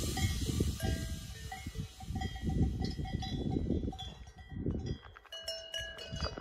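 Cowbells on grazing cattle clinking and ringing on and off in clear metallic tones, over a low gusting rumble of wind on the microphone.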